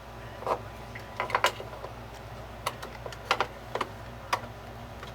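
Irregular sharp plastic clicks and taps as a DDR memory stick is lined up and pressed into a motherboard memory slot, some in quick pairs, over a faint steady hum.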